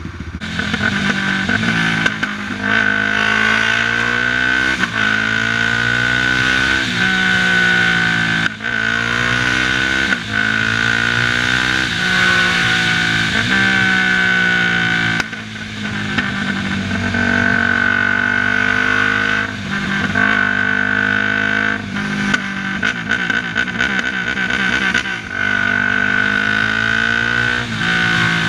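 Yamaha sport quad's single-cylinder four-stroke engine accelerating hard again and again, its pitch climbing and then dropping sharply at each gear change or throttle lift. A steady high whine runs underneath.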